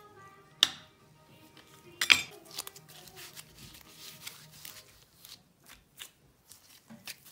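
Background music, with two sharp knocks about a second and a half apart as a dough cutter strikes the floured board, then softer tapping and rustling of gloved hands handling the cut pieces of dough.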